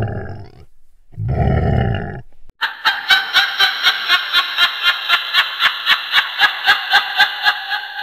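Two short low sounds, then about two and a half seconds in a witch's high-pitched cackling laugh starts: quick, even 'ha-ha' pulses at about four a second that run on steadily.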